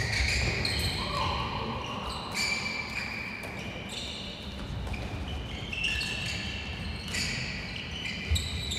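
Indoor ball game in play: sports shoes squeaking on a hall floor in short, shifting squeals, with ball bounces and a sharp thump near the end.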